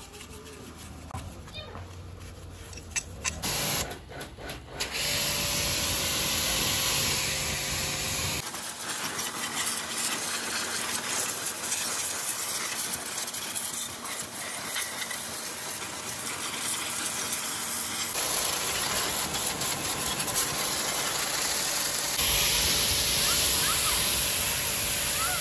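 A few sharp knocks, then a steady hiss of spray that runs on with abrupt changes in tone where the footage is cut.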